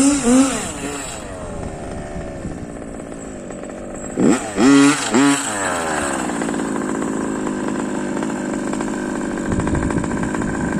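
Losi 5T 1:5-scale RC truck's two-stroke petrol engine with a BZM exhaust, revved in quick blips twice, at the start and again about four seconds in, dropping back each time to a steady idle.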